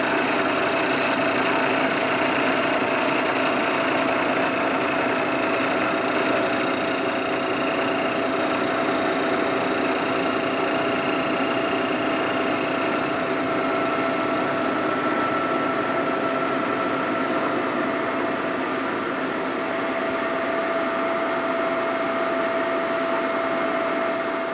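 Vertical milling machine running a cutter across the cylinder deck of a 1961 Harley-Davidson panhead's aluminium engine case, facing it flat: a steady machining noise with a constant whine and a thin high ring.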